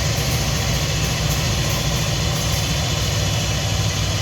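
Diesel locomotive engine running steadily with an even low drone.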